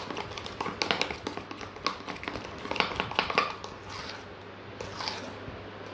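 Metal spoon stirring a white mixture in a stainless steel tumbler, clinking and scraping against the inside in quick, irregular taps that thin out toward the end. The material is being mixed until smooth.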